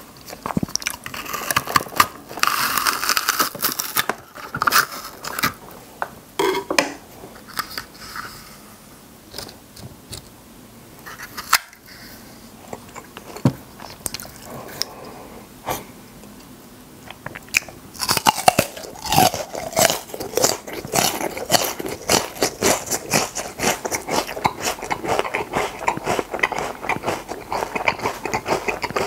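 Crunching bites and chewing of raw lotus root, close up. A burst of dense crunches early, a quieter stretch of slower chewing in the middle, then rapid steady crunching again through the last third.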